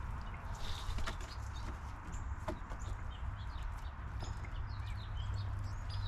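Small songbirds chirping, many short high chirps scattered throughout, over a steady low rumble.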